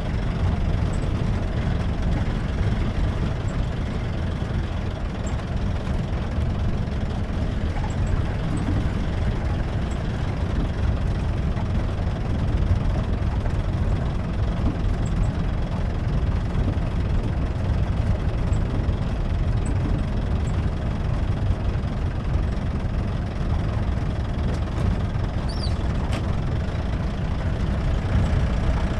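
Jeep engine running on the move, heard from aboard: a steady low rumble with road and body noise that holds even throughout.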